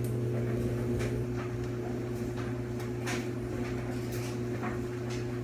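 Steady low mechanical hum with a constant tone above it, like a running appliance or fan, with a few faint clicks.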